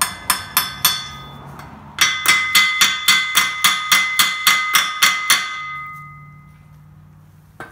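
Hammer tapping on the steel of a hay tedder's gearbox shaft assembly: a quick run of ringing metal strikes, about four a second, that turns louder about two seconds in and stops after about five and a half seconds, the ring dying away after the last blow.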